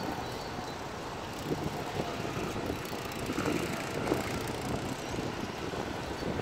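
City street traffic: a steady wash of road noise from cars and cyclists passing by, with small scattered clicks and rattles.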